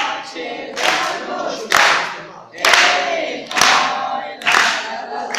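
A group of voices singing a Romanian song together, with sharp claps on a steady beat about once a second.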